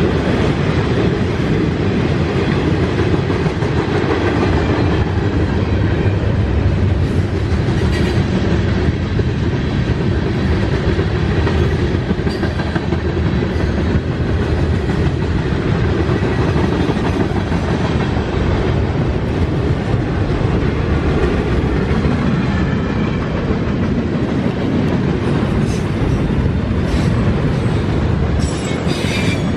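Freight train cars rolling past, a steady rumble of wheels over the rails with clickety-clack, and faint wheel squeal near the end.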